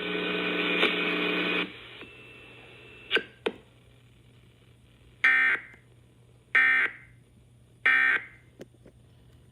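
Emergency Alert System end-of-message data tones from a radio: three short, raspy digital bursts about 1.3 seconds apart, closing the alert. Before them the broadcast audio cuts off about a second and a half in, followed by two faint clicks.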